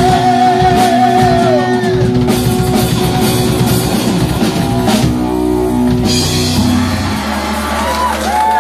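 Live rock band playing loud, with drum kit and guitar. A long wavering high note is held at the start, and about seven seconds in a low note is held under sliding, squealing high notes.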